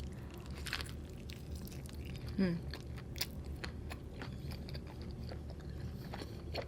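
Close-up chewing of a mouthful of food, with many small wet mouth clicks and one brief hummed "mm" about two and a half seconds in.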